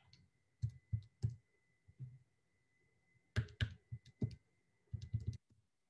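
Faint clicks of keys being pressed, about a dozen in small groups. Under them runs a faint steady high tone that stops shortly before the end.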